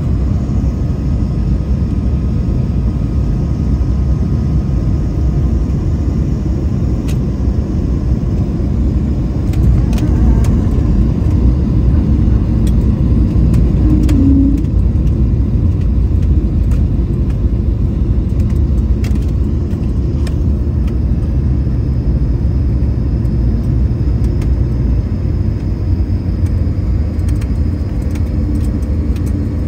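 Cabin noise of a jet airliner touching down and rolling out on the runway with its spoilers up: a loud, steady, low rumble of engines and wheels, growing louder for a few seconds about a third of the way in, with a few light clicks and rattles.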